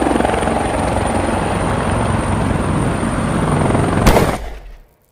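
Helicopter flying, its rotor beating steadily. About four seconds in comes a single sharp explosion bang, and then the sound dies away within a second.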